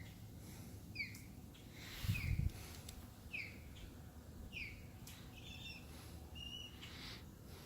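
A bird calling over and over, short downward-slurred notes about once a second, with a brief patter of higher chirps from another bird near the end. A low thump about two seconds in is the loudest sound.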